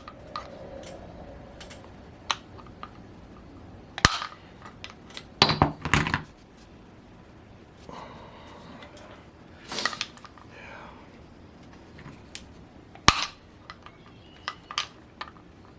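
Sharp metal knocks and clinks, a few seconds apart with a quick cluster of them about a third of the way in, from working the stuck crankshaft out of a Raduga 61 model glow engine's crankcase.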